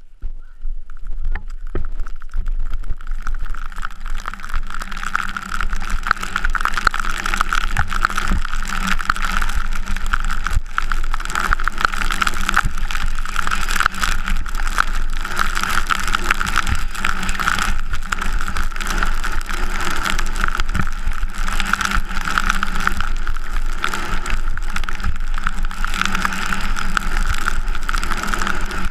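Rushing wind over the GoPro Hero3 camera and the hiss of race skis running on snow at Super G speed, building over the first few seconds as the skier accelerates, then holding steady with a constant whistle-like tone running through it.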